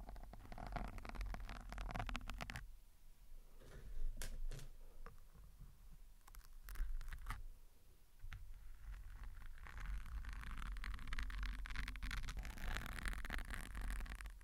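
Close-miked foam microphone windscreen being handled: sewing pins scraping and clicking as they are drawn out of the foam, with a few separate sharp scrapes in the quieter middle. Near the end, fingertips rub and scratch the foam, giving a dense scratchy rustle.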